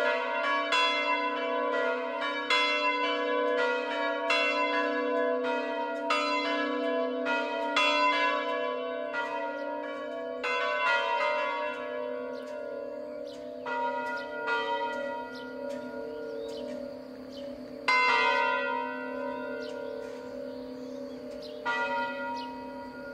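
Three electrified swinging church bells, the smallest of a five-bell chime in F#, cast by Capanni, ringing the second Mass signal. At first the strikes come fast and overlap with a steady hum. About halfway through they thin out to a few single strokes, each left to ring on, as the bells slow toward rest.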